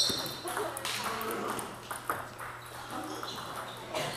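Table tennis balls clicking on tables and bats: one sharp, ringing ping right at the start, then scattered lighter ticks from rallies on other tables, and another click near the end.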